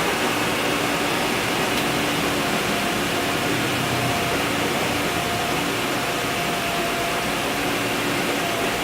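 Mercedes G 300 engine idling steadily after a rev has died away, with a dense hiss and faint, broken humming tones. This is the rough idle the owner is asking for help with.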